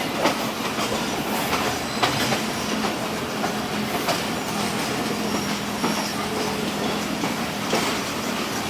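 Train running on the rails: a steady rumble with sharp wheel clicks every second or two.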